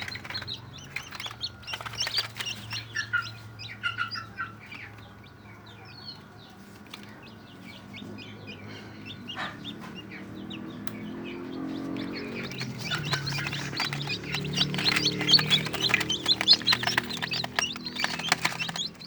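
Newly hatched kampung super chicks peeping, many short high chirps overlapping, growing busier and louder about two thirds of the way through.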